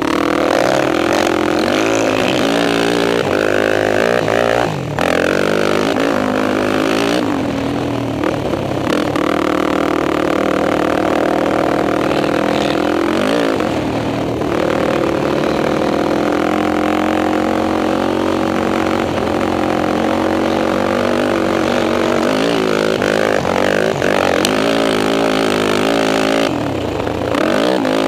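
Sport quad (ATV) engine heard from on board, revving up and down with the throttle while riding, with a brief drop in level about five seconds in.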